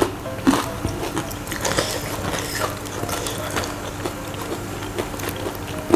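People chewing spicy fried chicken close to a clip-on mic: wet mouth sounds with scattered small crunches and clicks.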